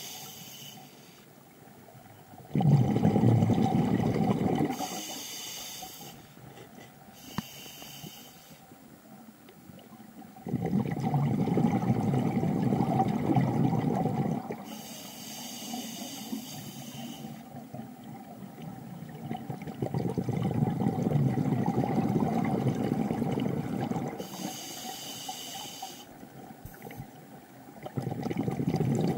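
Scuba diver breathing through a regulator underwater: a short hiss of each inhale through the demand valve alternates with a longer low bubbling rush of exhaled air. About four slow breaths, several seconds apart.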